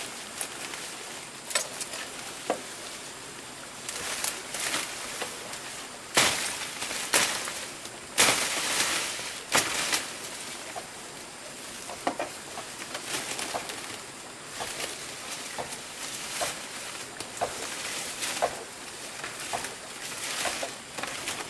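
Scattered sharp clicks and knocks with bursts of rustling, over a steady high hiss of outdoor background.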